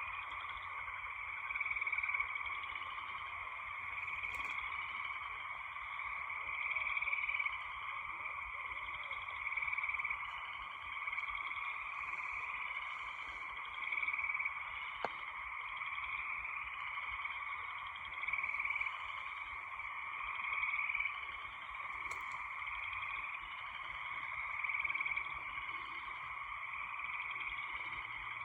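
Steady nighttime chorus of calling frogs, a continuous trilling din that swells louder every few seconds, with one faint click partway through.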